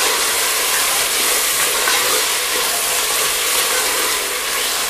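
Onion-tomato masala frying in oil in an aluminium pressure cooker, sizzling steadily while a wooden spoon stirs in freshly added yogurt.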